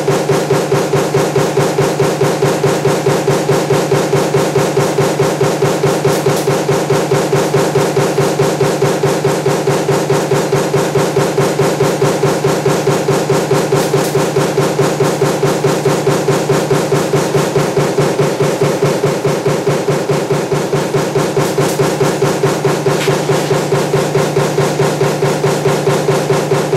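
Power press running a stamping die for table fan motor parts, striking in a steady rapid rhythm of about five strokes a second over a constant machine hum.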